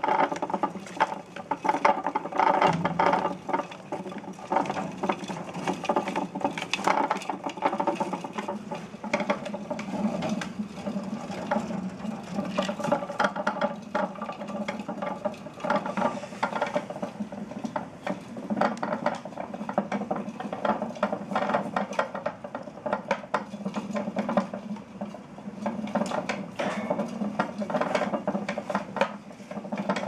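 Blue plastic exercise wheel spinning with several white-footed mice running in it at once: a continuous, uneven clicking and rattling of the wheel, mixed with the patter of small feet.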